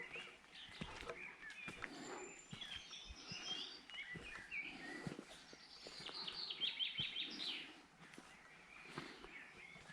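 Several small songbirds singing and calling, with a quick run of about eight repeated notes some six and a half seconds in.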